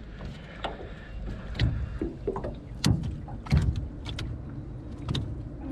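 Irregular knocks and bumps on an aluminum jon boat's metal hull, about seven in five seconds, some ringing briefly, over a steady low rumble.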